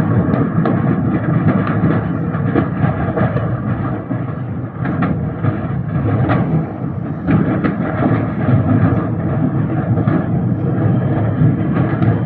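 Large industrial fire burning: a continuous deep rumble with repeated sharp cracks and bangs from explosions in the blaze.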